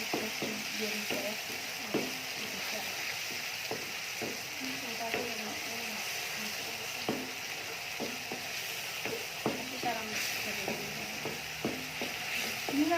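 Food sizzling as it fries in a pan, stirred with a spatula that clicks and scrapes against the pan now and then.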